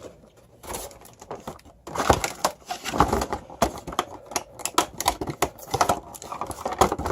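Plastic action-figure packaging clicking and crinkling as the figure's accessories are pried out of the tray, in quick irregular clicks that begin about a second in and grow busier and louder about two seconds in.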